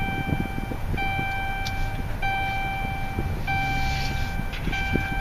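A steady electronic beep, about a second long, repeating every second or so, five times, over a low rumble with scattered clicks.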